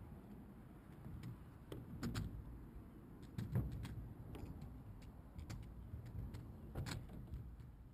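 A kick scooter's wheels rolling on a skatepark ramp: a faint low rumble broken by a few sharp clacks, the loudest about three and a half seconds in and near the end.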